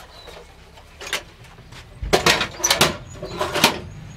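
Irregular knocks, clatters and scrapes of hard objects being handled: one short knock about a second in, then a busier run of louder knocks and scraping between two and four seconds in.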